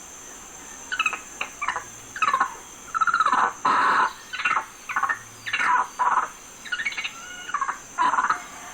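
Birds calling repeatedly in short, loud chirps that sweep in pitch, over a steady high drone of insects.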